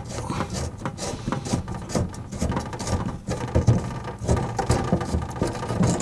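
Irregular rubbing, scraping and clicking as a hand turns the nut on a tap's copper supply pipe, unscrewing it from the brass tap tail close to the microphone.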